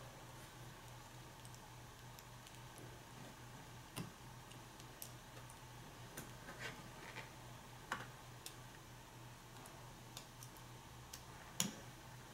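Faint, scattered small clicks and ticks as a brass padlock core and a slim metal tool are handled, about half a dozen over the stretch, the sharpest near the end, over a steady low hum.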